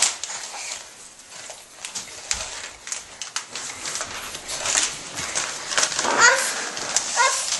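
Wrapping paper crinkling and tearing as a present is pulled open, with a few short high-pitched vocal cries near the end.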